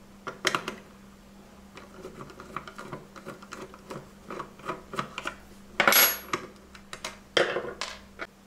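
A small metal spanner and screwdriver working a nut and screw, a run of light metal clicks and scrapes. Near the end come two louder metal clanks as the tools are put down on the wooden bench.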